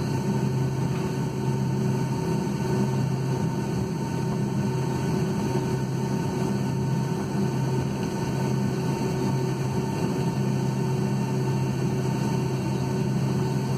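Steady cabin noise inside a Boeing 757-200 taxiing, its engines running: an even rush with a low, unchanging hum and a few steady tones.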